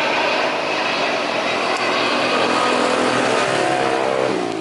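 Boeing 747-400 jet engines on landing approach passing low overhead: loud steady jet noise with a whining tone, the pitch dropping near the end as the aircraft goes past.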